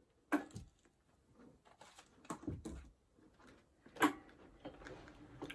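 A few soft knocks and faint rustles of a paperback book being fetched and handled, the sharpest knock about four seconds in.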